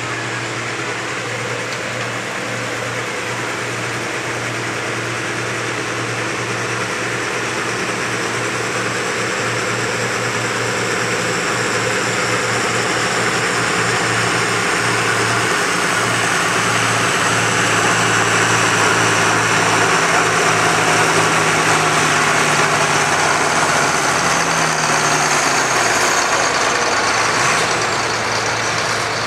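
Farm tractor engine running hard under load as it drags a weight-transfer pulling sled, growing steadily louder as it comes closer. About 25 seconds in, the engine note drops and the sound eases off as the pull comes to a stop.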